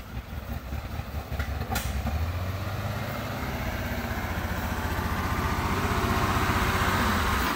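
1962 Chevrolet flatbed truck's six-cylinder engine running as the truck drives slowly across grass: a low, pulsing rumble that grows louder as the truck comes near.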